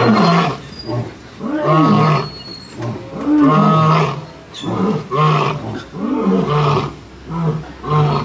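Lion roaring: a series of deep, loud grunting roars, spaced about a second and a half apart at first, then coming closer together toward the end.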